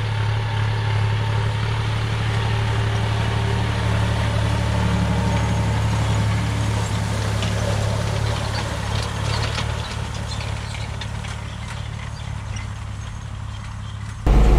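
John Deere tractor engine running steadily while pulling a Kuhn twin-rotor hay rake, with some light clattering as the rig passes close, the sound fading as it moves away. Just before the end it changes suddenly to a louder, deeper engine drone.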